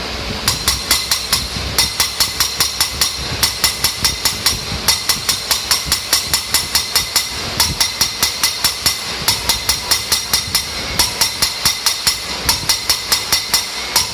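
Rapid rhythmic clicking, about four to five sharp clicks a second in runs broken by short pauses, over a steady high-pitched hiss.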